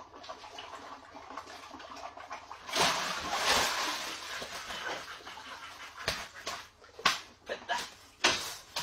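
Splashing as a landing net with a caught fish is lifted out of the water, loudest about three seconds in, followed by a few sharp slaps of the fish flapping in the wet net near the end.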